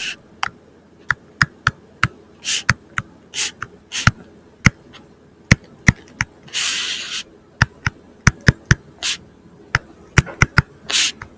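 Stylus tapping and scratching on a tablet screen during handwriting: irregular sharp clicks as the pen tip strikes the glass, with one longer rustle a little past halfway.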